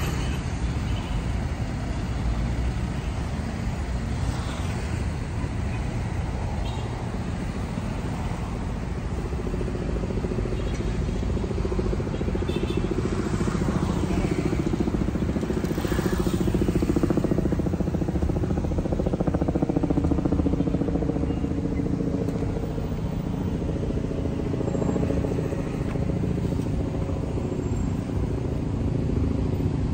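Steady road traffic, with a motor vehicle's engine hum coming up about a third of the way in and loudest a little past the middle.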